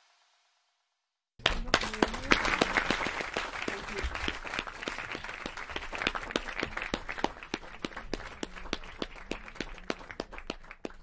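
Audience applauding, a dense patter of many hands that starts suddenly after a second or so of silence and slowly thins out toward the end.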